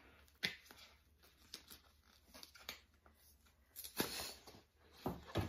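Wrapping on a rolled towel being torn and crinkled open by hand: scattered rustles, with louder tearing about four and five seconds in.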